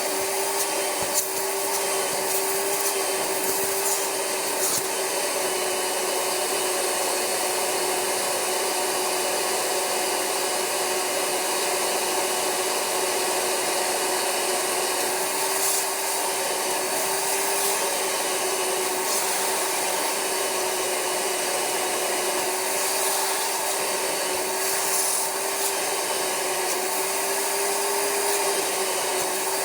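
Rug Doctor carpet cleaner running steadily through its Universal Hand Tool on upholstery: a constant rushing suction hiss with a steady motor whine.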